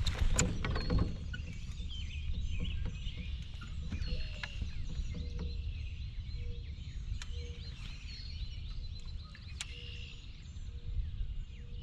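Wild songbirds chirping and whistling over and over in a mixed chorus, over a steady low rumble. A few sharp clicks come in the first second.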